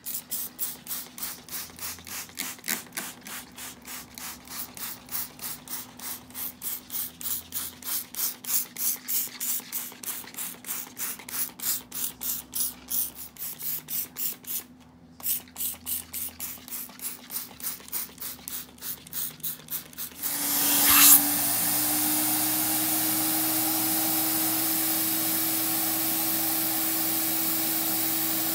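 Trigger spray bottle squirted over and over at about three sprays a second, with a short break partway through. About twenty seconds in, a carpet and upholstery extractor's vacuum motor starts up and settles into a steady run.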